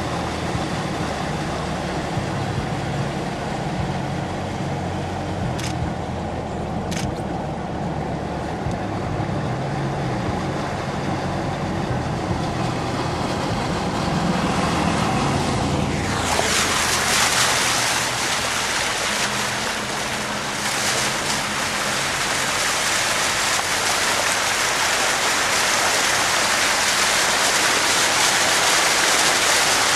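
A vehicle's engine running steadily as it drives through deep floodwater. About halfway through, a loud rushing splash of water being pushed aside takes over and continues.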